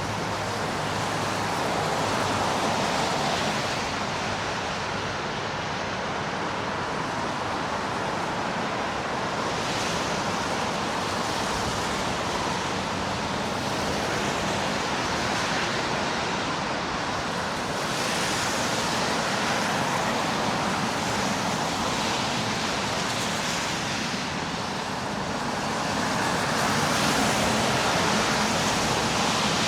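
Steady hiss and rumble of city street traffic, swelling a little as vehicles pass, louder near the end.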